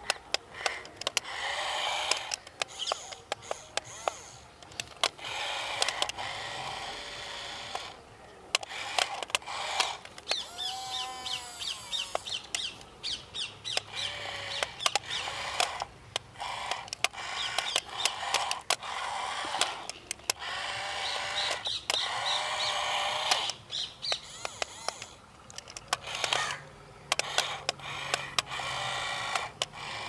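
Small electric gear motors of a toy remote-control tracked excavator, whirring in short bursts that start and stop as the arm and bucket are worked. There are sharp clicks between the bursts.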